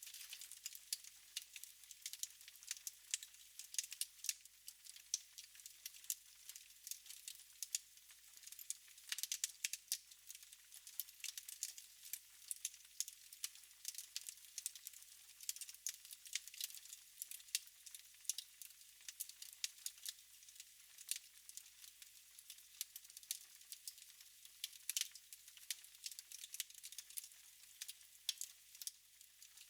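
Wood fire in a fireplace crackling: a continuous stream of small sharp pops and snaps over a soft hiss.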